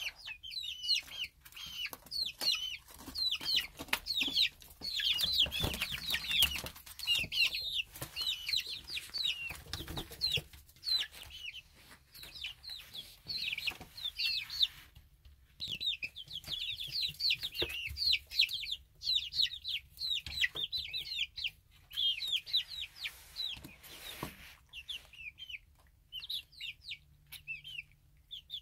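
A group of young chicks peeping busily, many short, high peeps overlapping, mixed with short clicks and rustles. The peeping stops briefly about halfway and thins out near the end.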